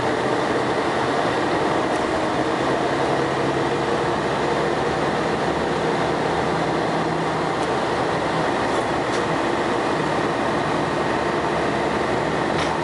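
Scania L113CRL bus on the move, heard from inside the passenger saloon: its 11-litre six-cylinder diesel and ZF automatic gearbox running steadily under road noise, with a few faint rattles.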